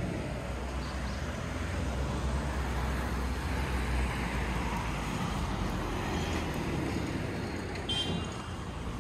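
Road traffic: a vehicle passing with a low rumble and tyre noise that swells and eases off. A short high-pitched squeak about eight seconds in.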